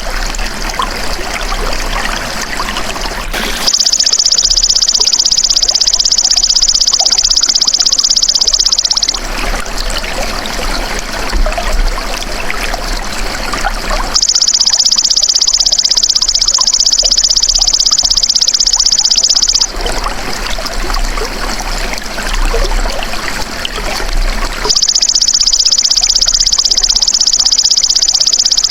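Belalang emas (golden grasshopper) calling in long, high, buzzing trills of about five seconds each, three times, with pauses between, over steadily trickling running water.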